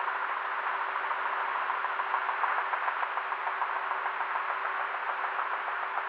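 Helicopter in flight: a steady engine and rotor noise with a fast, even chop from the rotor blades and a constant hum.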